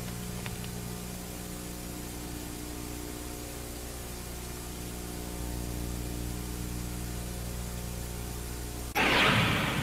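Steady hiss with a low electrical hum under it and no clear sound event, then a short, sudden louder sound about nine seconds in.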